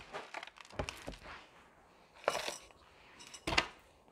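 A few short gritty scrapes and clacks of a plastic garden trowel scooping soil and pumice grit potting mix in a plastic tub and being laid down in it. The two loudest come about two and a half and three and a half seconds in.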